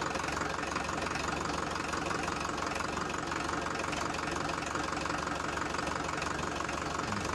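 Mini tractor's engine running steadily with a fast, even knocking chug, as it sets off to fetch another trolley load of soil.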